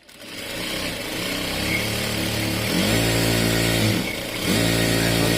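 Electric sewing machine sewing at full speed. Its motor and needle mechanism speed up over the first couple of seconds, ease off briefly about four seconds in, then pick up again.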